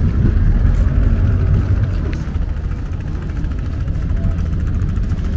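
Boat engine idling with a steady low rumble.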